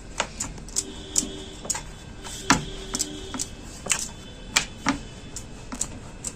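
Rolling pin clacking and knocking against a rolling board as maida dough is rolled out thin for samosa wrappers: sharp, uneven knocks about two a second.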